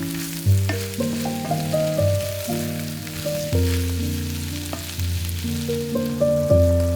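Food sizzling as it fries in a pan, under background music whose notes and bass change about twice a second.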